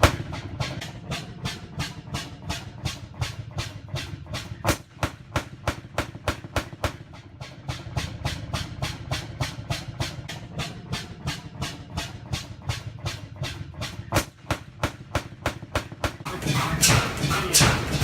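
Bovaird and Seyfang oil field engine running with a steady, rapid beat of about three to four strokes a second. The beat grows louder near the end.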